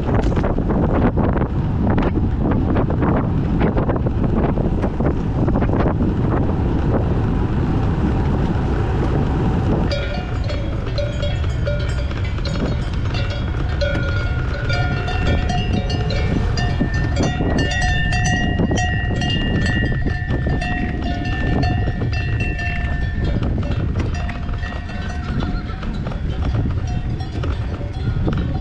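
Wind buffeting the microphone at speed, then from about ten seconds in the rush drops away and cowbells on grazing livestock clank and ring, several bell tones overlapping.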